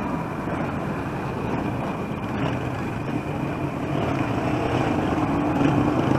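Street traffic noise, mainly a motor vehicle engine running close by as a steady low rumble that grows a little louder over the last two seconds.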